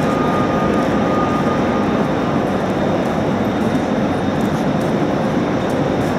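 Railway station ambience under a large train shed: a steady, loud drone from trains standing at the platforms, with a faint high whine that fades out about two seconds in.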